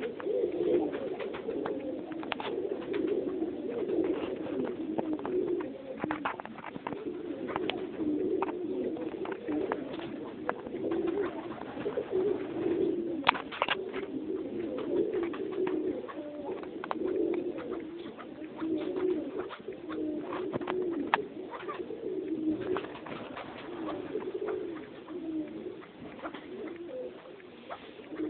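A huddled group of Alectoris partridges giving a continuous low, cooing chatter, with frequent sharp clicks and taps mixed in.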